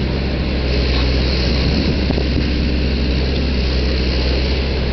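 Hyundai Robex 140-9 excavator's diesel engine running steadily under load with a deep, even drone as the machine slews round, a little louder from about a second in.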